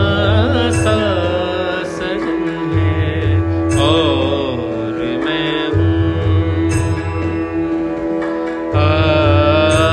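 Background instrumental music: a steady drone under a sliding, bending melody, with a low beat recurring about every three seconds.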